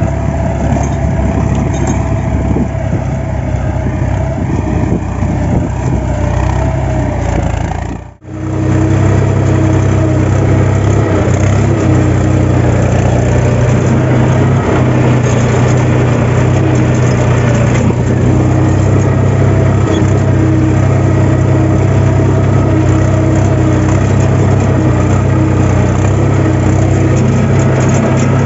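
Farm tractor's diesel engine running steadily under load while pushing soil with a front dozer blade. About eight seconds in the sound breaks off briefly and comes back closer and fuller, a steady low engine note.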